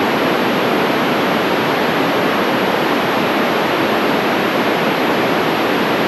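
Loud steady static hiss from a handheld FM radio's speaker on the ISS repeater channel, with no voice in it. It comes in abruptly and cuts off just as abruptly.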